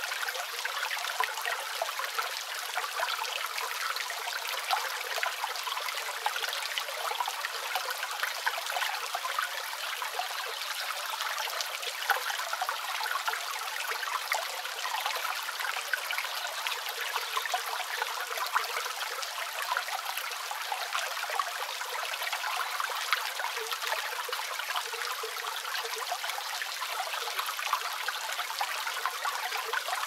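A small creek waterfall spilling over tree roots, trickling and splashing steadily, with rain falling on the leaves around it. It is a light, splashy sound with no deep rumble.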